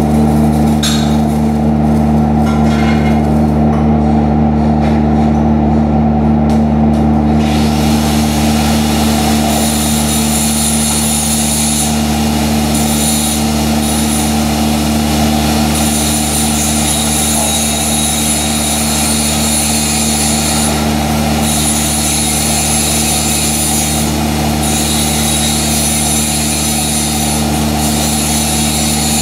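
Steady machine hum with several pitched tones, the running welding-shop equipment. In the first few seconds a quick run of scrapes and taps comes from slag being cleaned off the pipe weld with a hand tool.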